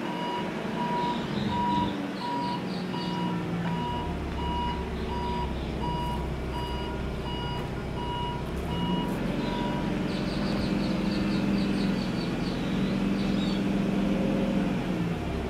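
Forklift reverse alarm beeping about twice a second over the forklift's running engine. The beeping stops about nine seconds in while the engine keeps running and picks up. A quick high ticking follows.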